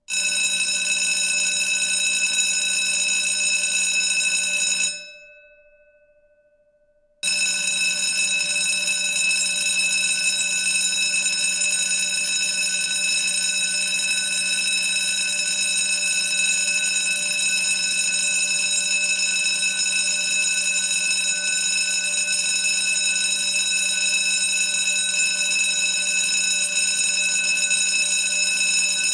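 Lobby (service) bell rung continuously, making a steady, bright ringing with many high tones. It stops about five seconds in and the tones ring out and fade, then it starts again about two seconds later and keeps going.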